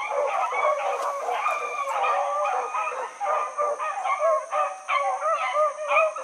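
A pack of rabbit-hunting hounds in full cry: many dogs baying over one another without a break as they run a rabbit's scent trail.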